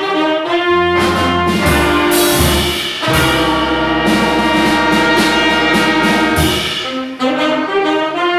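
Wind band playing a jazz arrangement with the brass to the fore: a few punchy chord hits, then a long held chord, then a new phrase begins near the end.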